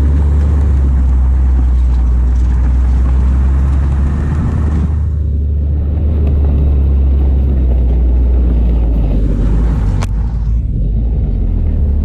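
Snowmobile engine running while riding, a loud, steady low drone. The upper hiss drops away for a moment about five seconds in, and there is a single sharp click about ten seconds in.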